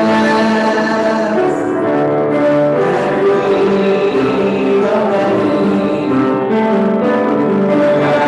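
Music with held notes and changing chords.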